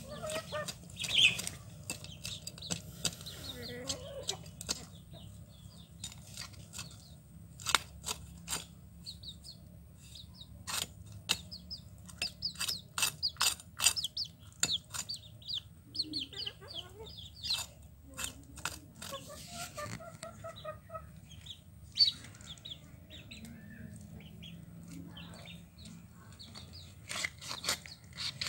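A snakehead fish scraped and cut against an upright boti blade, giving runs of short, sharp scraping clicks. Hens cluck on and off between the runs.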